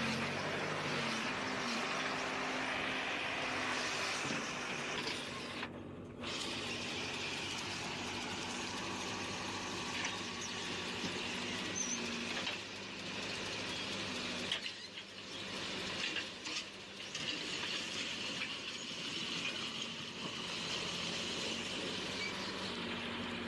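Heavy road-works machinery running, with a steady high squeal over the engine noise.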